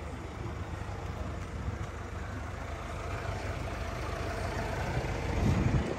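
A car engine idling steadily as the donor vehicle in a jump-start, charging a flat Hilux battery through jumper cables. It swells briefly about five and a half seconds in.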